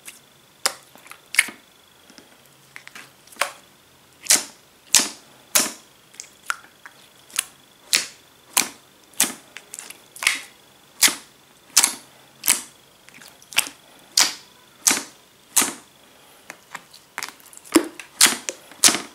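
Thick, glossy slime being squeezed and pressed by hand, giving a run of sharp pops and clicks as trapped air bursts out, roughly one every half second to second, coming faster near the end.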